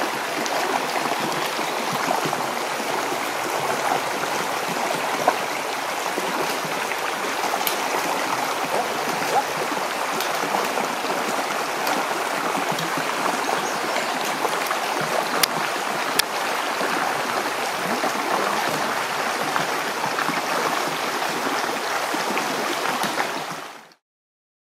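A shallow fork of the Gila River running over rocks: a steady rush of water, with a few sharp clicks scattered through it. It cuts off to silence near the end.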